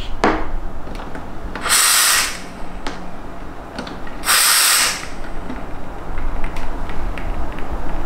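Steam wand of a Petrus PE3320 espresso machine purged in two short hissing blasts of about half a second each, about two seconds in and again about four and a half seconds in. The blasts clear leftover milk out of the wand after frothing.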